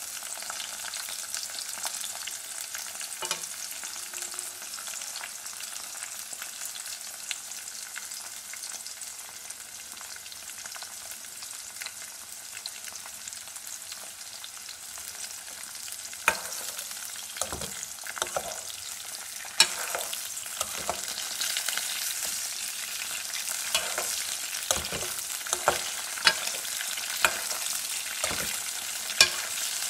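Vegetable strips sizzling in oil in a metal karahi while being stirred with a metal spoon. From about halfway through, the spoon clinks and scrapes against the pan again and again.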